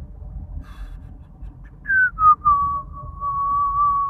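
A man whistling: a couple of short falling notes about two seconds in, then one long held note, over the steady low rumble of a moving car's cabin.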